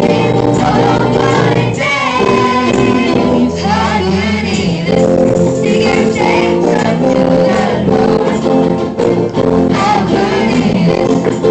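Live church worship band playing a song: several voices, girls among them, singing into microphones over electric guitars, an acoustic guitar and a low bass line.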